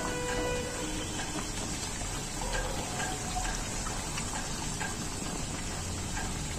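Samosas deep-frying in hot oil over a low flame: a steady sizzle with scattered small pops, and a brief ringing tone at the very start.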